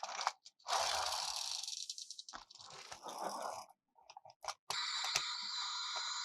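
Hands handling a plastic toy and its packaging: plastic crinkling and rustling broken by scattered clicks and small rattles, with a steadier stretch of rustling from about five seconds in.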